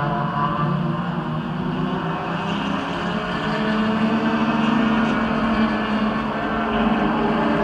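Race car engines running on the circuit: a steady drone that drifts slowly in pitch.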